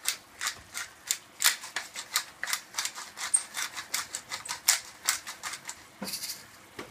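Wooden pepper mill being twisted to grind black peppercorns: a quick run of short, scratchy grinding clicks, several a second, that stops about six seconds in.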